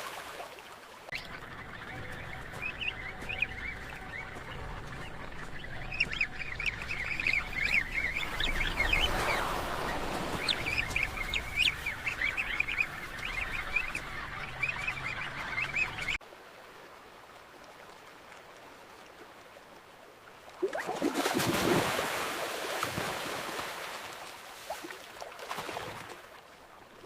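A penguin colony calling: many overlapping short squawks and honks over a low rumble, cutting off abruptly about halfway through. After a few seconds of quieter ambience, a swell of ocean-wave noise rises and fades.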